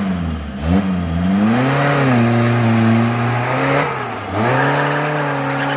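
Suzuki Jimny 4x4 engine revving hard under load as it climbs a steep, rutted mud slope. A couple of short throttle blips come first, then high revs held, a brief dip about four seconds in, and high revs again.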